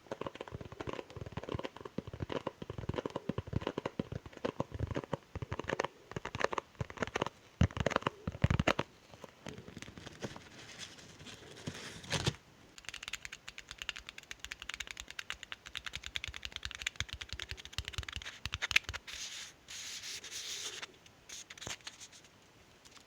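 Packaging being handled and torn open close to the microphone: dense crinkling, scratching and crackling, with louder rips about eight and twelve seconds in.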